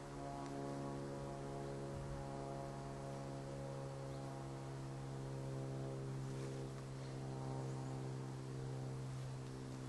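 Low, steady drone from a horror-film score: one held pitch with many overtones, some upper tones fading in and out.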